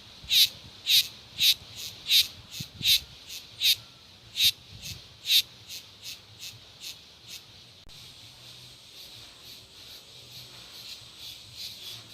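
Cicadas singing: a series of short, loud, shrill pulses at about two a second. About eight seconds in they give way to a softer, steady buzz at the same high pitch with faint pulsing.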